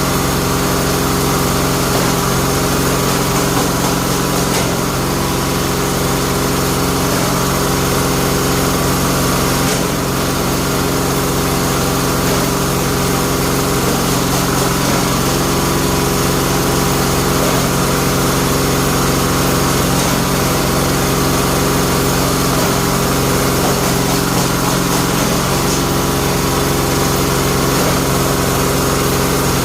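Bamboo-splitting machine running steadily with an unbroken engine-like drone, its tone shifting slightly every few seconds.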